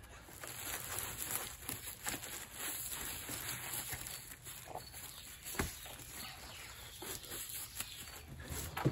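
Crinkling and rustling of plastic stretch wrap as hands press and probe over a wrapped archery target, with scattered small crackles and one sharp tick a little past halfway.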